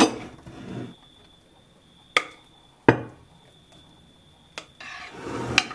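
A metal spatula clinking and scraping against a glass mixing bowl as thick buttercream filling is scraped out: a few sharp clinks, two of them a little over two and nearly three seconds in, and a longer scraping stretch near the end.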